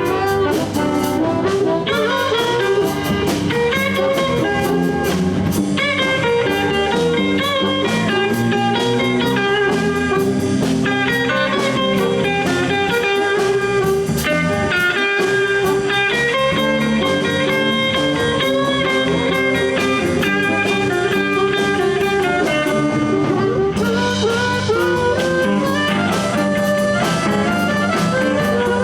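Live blues band playing an instrumental break in a shuffle, with drums, bass and guitars. A lead instrument holds long notes over the rhythm.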